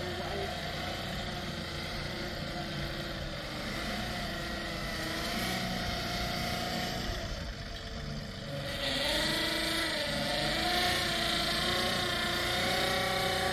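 An engine running steadily, its tone wavering up and down in the second half.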